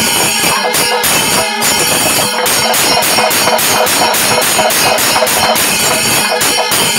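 Panchavadyam temple ensemble playing at a fast tempo: maddalam barrel drums beaten in dense, rhythmic strokes, with a continuous clash of small hand cymbals over them.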